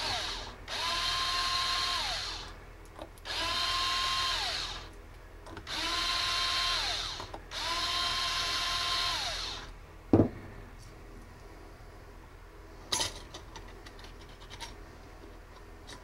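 Cordless power driver running in four bursts of about two seconds each, backing out the bolts of a clutch diaphragm spring. At the end of each burst its whine falls as the motor winds down. A sharp knock comes about ten seconds in, then a few light clicks.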